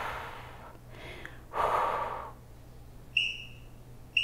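A woman's hard, forceful exhalation about a second and a half in, out of breath from squeezing the core during the exercise. Near the end come two short, high electronic beeps a second apart: an interval timer counting down the last seconds of the set.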